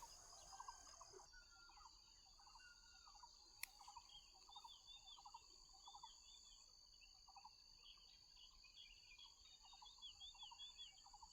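Near silence with faint outdoor ambience: a steady high insect whine under many small, quick chirping calls. A single sharp click comes about three and a half seconds in.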